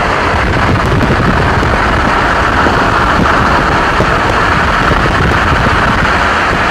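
Steady loud rushing noise of wind on the microphone, mixed with the low rumble of a moving vehicle.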